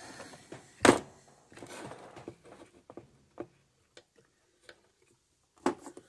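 Scattered clicks and light knocks of a CB radio's metal chassis and small parts being handled on a workbench, the loudest about a second in and another near the end.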